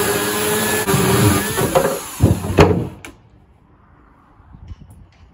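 Corded electric chainsaw running and cutting through the solid beech frame of a vintage Ercol table, with heavier bites between one and three seconds in. It stops abruptly about three seconds in, and a few faint ticks follow near the end.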